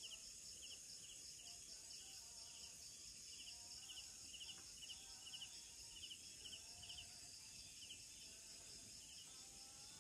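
Faint tropical forest insect chorus: a steady high-pitched drone with a short pulsed chirp repeating about twice a second.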